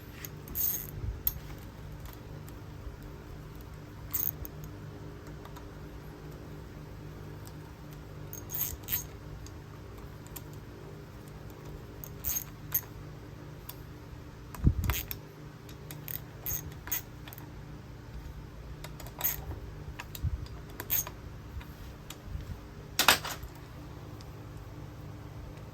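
Scattered metallic clinks and taps, as of tools and small metal parts being handled, over a steady low hum; a heavier knock comes about halfway through.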